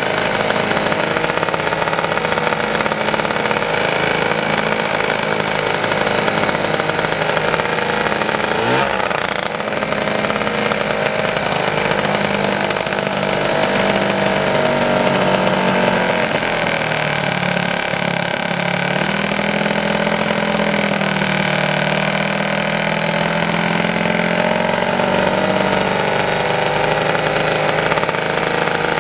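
Home-built twin-cylinder two-stroke paramotor engine, made with Minarelli cylinders, running on a test stand. Its speed rises sharply about nine seconds in, then wavers up and down a few times.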